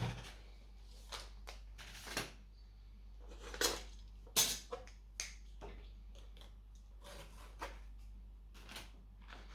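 Irregular clicks and light knocks of hands handling a laptop and small tools on a work surface, the loudest about three and a half and four and a half seconds in, over a low steady hum.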